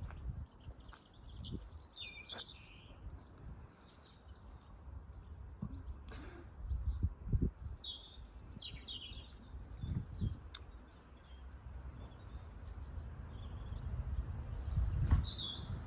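Small birds chirping and twittering in short, high phrases a few seconds apart, over a steady low rumble.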